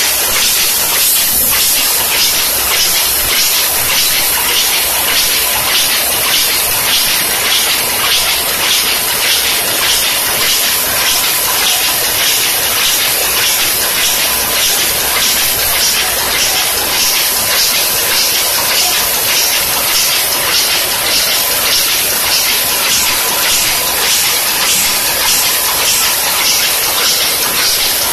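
Soft-pack cigarette packing machine running at full speed: a loud, steady, fast mechanical clatter with a hiss, its rapid even rhythm the machine's packing cycle.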